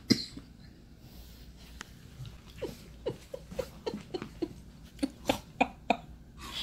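Dogs play-fighting: a quick run of about ten short, sharp vocal bursts, each dropping in pitch, in the second half.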